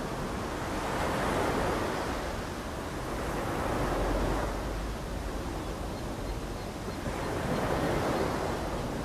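Ocean surf breaking and washing up a sandy beach, swelling and ebbing three times.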